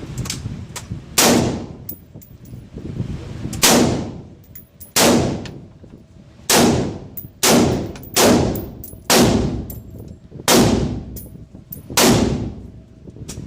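Nine single gunshots, each a sharp crack with a short decaying tail, fired about one to two seconds apart.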